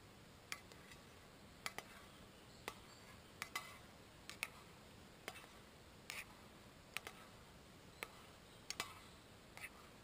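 Metal spoon clinking against the side of a stainless steel camp pot while stirring: sharp light clicks at uneven intervals, about one or two a second, some in quick pairs.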